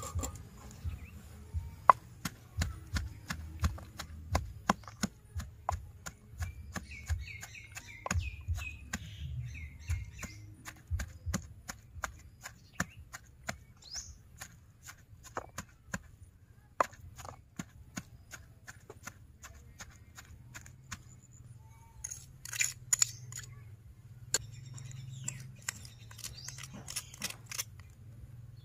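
Wooden pestle pounding shredded vegetables in a stone mortar, in a steady rhythm of about two knocks a second that grows sparser in the last few seconds.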